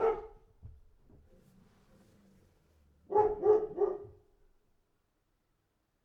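A dog barking: a single bark at the start, then three quick barks in a row about three seconds in.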